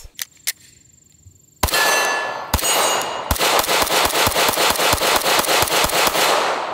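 Glock 19 9mm pistol with a Radian Ramjet barrel and Afterburner compensator fired: two single shots about a second apart, with a metallic ring after them, then a fast string of shots at about four a second that stops shortly before the end.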